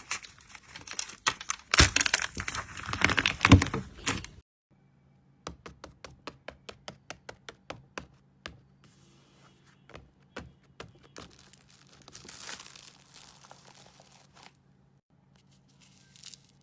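Slime being squeezed and pressed: dense crackling and popping for about four seconds, then after a short gap a quick run of small sharp clicks, about five a second, and later a softer stretch of crackling.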